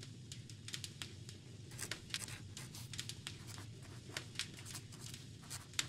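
Quill pen scratching on paper in short, irregular strokes.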